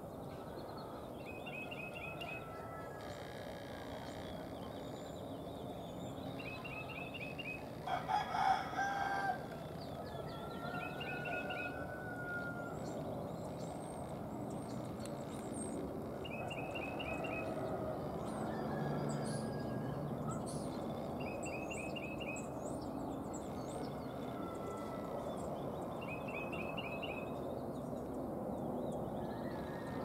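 A rooster crows once, a pitched call of about a second and a half, about eight seconds in. Throughout, a bird repeats a short, rapid run of high notes every few seconds over steady outdoor background noise.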